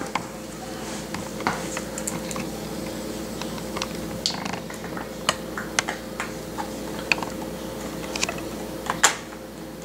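Irregular light clicks and taps of laptop plastic parts being handled and fitted back together during reassembly, with one louder snap about nine seconds in.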